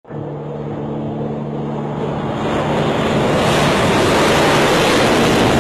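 Sukhoi Su-34 jet engines running at full power on its takeoff run with afterburners lit: a steady low hum at first, growing into a louder, broader rush of jet noise over the last few seconds as the aircraft passes.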